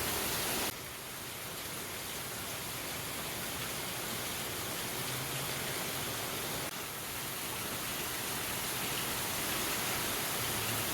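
Steady rain falling: an even hiss with no distinct drops or tones, a little quieter after about a second in.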